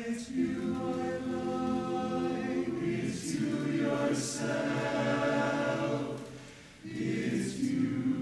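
Barbershop chorus singing a cappella in close harmony, holding sustained chords with crisp sibilant consonants. The sound fades briefly about six and a half seconds in, then the full chorus comes back in.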